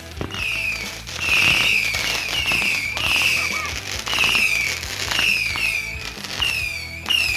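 Fireworks going off: a run of shrill whistles, each falling in pitch and overlapping the next, with crackling.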